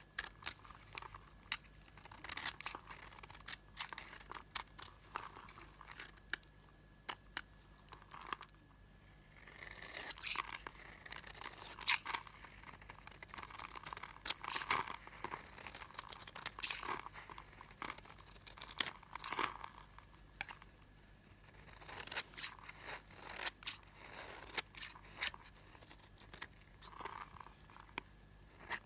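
Old bar soap being cut with a knife: dry crunching and crackling, made of many sharp snaps that come in clusters lasting a few seconds each.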